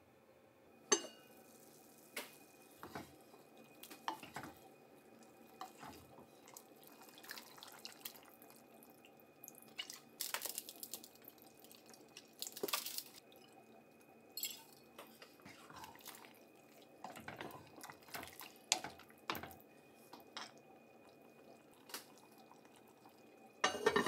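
Kitchen sounds around an enamelled cast-iron pot of simmering taro and carrots: scattered clinks and knocks of the heavy lid and utensils, and seasoning poured in from a bottle with splashing and dripping. A cluster of louder clinks near the end as the lid is handled.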